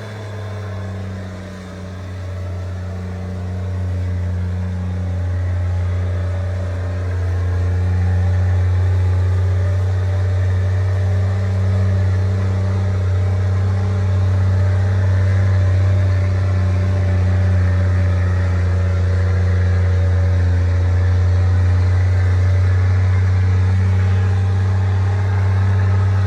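Nissan Patrol engine running at a low, steady note. It grows louder over the first several seconds, then holds steady.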